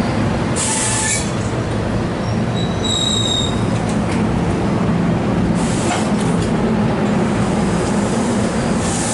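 Train moving on the rails: a steady loud rumble of wheels and equipment, with a brief high-pitched wheel squeal about three seconds in and short bursts of hiss around the first and sixth seconds.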